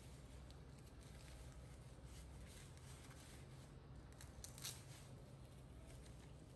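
Faint rustling and crinkling of a disposable diaper being handled and fastened, with one brief louder crinkle a little past the middle as a tab is pulled. A low steady hum runs underneath.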